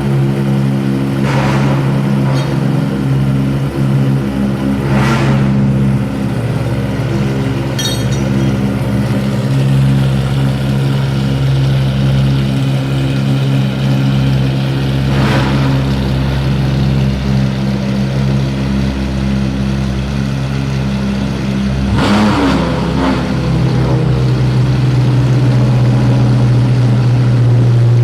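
Ferrari FXX's 6.3-litre V12 running steadily at a fast idle, with a few brief louder bursts of throttle, the engine note shifting slightly after one about three-quarters of the way through.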